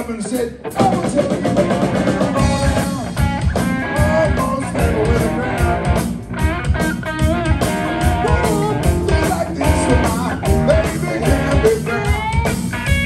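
Live blues-rock trio, electric guitar, bass guitar and drum kit, playing an instrumental passage. The electric guitar plays a lead line with bent notes over the bass and drums, after a brief drop in the music just after the start.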